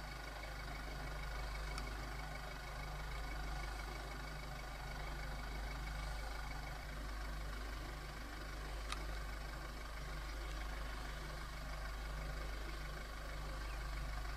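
Steady low rumble of an idling vehicle engine, with a faint click about nine seconds in.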